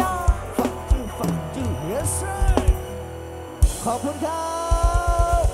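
Live band music from a Thai rot hae sound-truck band: drum kit and bass under sliding lead notes, with a fast run of bass-drum hits near the end.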